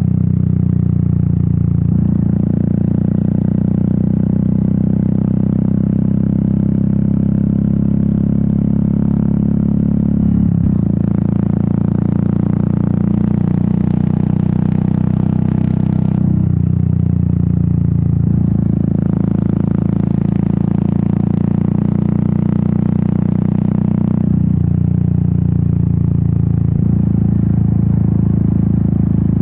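Royal Enfield Meteor 350's single-cylinder engine and exhaust running under way on the road. The engine note changes step-wise a few times, about two, ten, sixteen and twenty-four seconds in.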